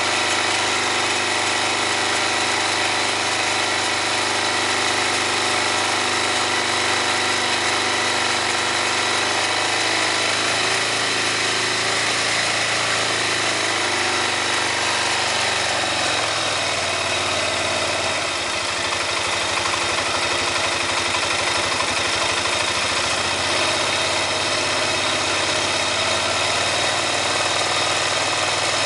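2005 Honda Rincon ATV engine running steadily near idle, its pitch shifting a little partway through. The owner hears a grinding sound from this engine when it is given throttle.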